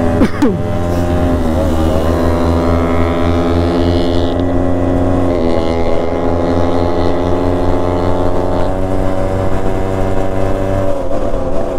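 Yamaha RX135 two-stroke single-cylinder engine running steadily under way, its pitch holding nearly constant with small shifts about five and nine seconds in.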